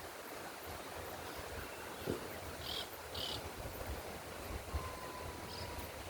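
Wind blowing across open countryside, a steady hiss with low rumbling gusts on the microphone. Two short high bird chirps come about halfway through, and a thin steady whistled note sounds for about a second near the end.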